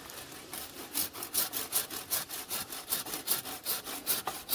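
Hand saw cutting through a thick branch in steady back-and-forth strokes, about three a second, the blade tending to bind in the cut.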